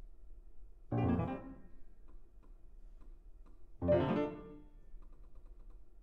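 Grand piano played solo: two loud, full chords struck about three seconds apart, each ringing away. Quiet held notes sound between them, and soft, quick repeated high notes come near the end.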